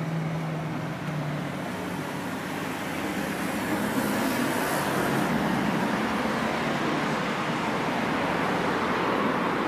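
Road traffic noise from the street: a steady rush of passing cars that swells louder through the second half. A low steady hum fades out about two seconds in.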